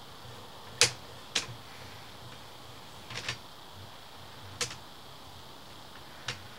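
A few sharp clicks and knocks at irregular intervals, the loudest about a second in, over a steady faint hiss, as a sewer inspection camera's push cable is fed down the pipe.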